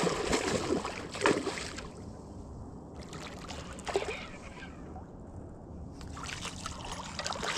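Hooked coho salmon thrashing at the surface as it is reeled in, splashing water: a few splashes in the first second or so and another about four seconds in, with softer water sounds between.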